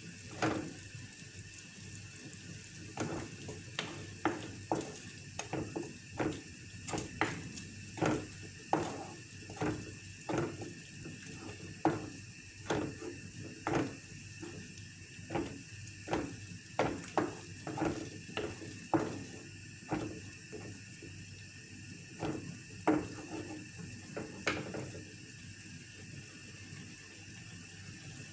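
Irregular clicks and knocks of kitchen utensils, roughly one or two a second, over a faint steady hum; they thin out near the end.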